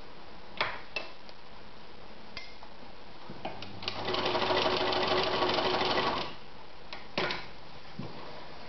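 A 1963 Veritas 8016/22 sewing machine runs for about two and a half seconds in the middle, sewing a straight stitch through thin leather. A few sharp clicks come before and after.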